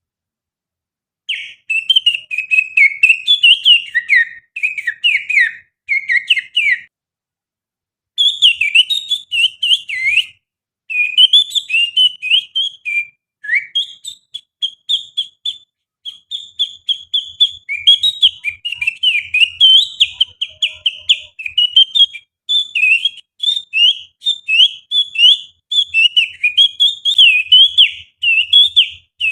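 Finger whistling imitating the song of an oriental magpie-robin (kacer): rapid chirping, warbling phrases with quick pitch slides, in runs broken by short pauses, the longest about a quarter of the way in.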